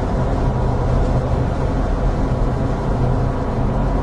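Steady engine and tyre noise of a car driving along, heard from inside the cabin.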